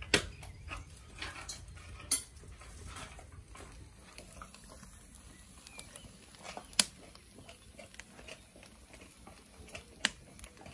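Wood fire burning in a newly built brick fireplace, crackling with scattered small ticks and four loud sharp cracks: at the start, about two seconds in, about seven seconds in (the loudest) and about ten seconds in. The owner takes the cracking for the fireplace bricks cracking in the heat.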